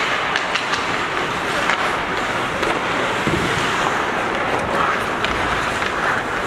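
Ice hockey play on a rink: skate blades scraping and carving across the ice in a steady wash of noise, with scattered sharp clicks of sticks and puck.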